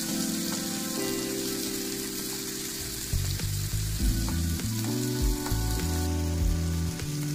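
Chopped onions and green chillies sizzling in hot oil in a pan as they are stirred with a wooden spatula. Background music with steady held notes plays underneath, and a deeper bass line comes in about three seconds in.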